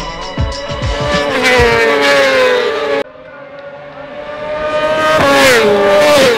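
Racing motorcycle engines at high revs passing by, their pitch dropping as they go past. About three seconds in the sound cuts off and a single bike is heard approaching, then passing with a falling pitch near the end.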